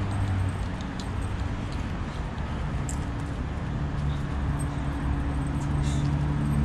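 A steady low mechanical hum, like an engine or machinery running, with a few brief light clicks now and then.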